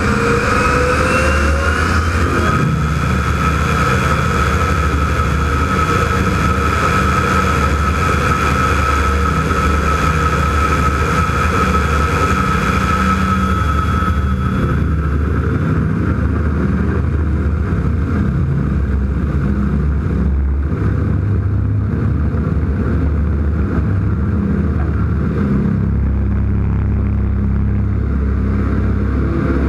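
Ag Cat crop-dusting biplane's engine and propeller running on the ground. A high whine rises over the first couple of seconds, holds steady and fades about halfway through, and the low engine note grows stronger near the end as the plane rolls out for takeoff.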